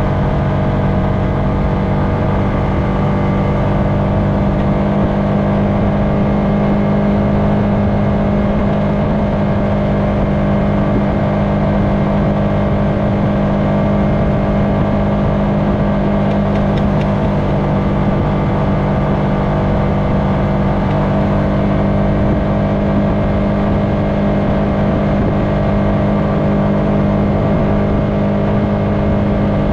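Honda FourTrax Foreman ATV engine running steadily at cruising speed, a constant even drone with no change in pitch.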